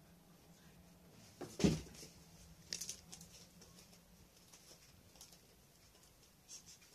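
An Abyssinian cat jumps down onto a wooden floor with a thud about a second and a half in, then light scattered taps of its paws on the floorboards as it trots off.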